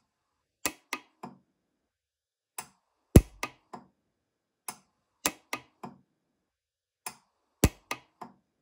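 Orion 200i pulse arc welder firing short weld pulses, tacking a sterling earring post in place: sharp snapping clicks in quick groups of three or four, about every two seconds, the loudest a little past three seconds in.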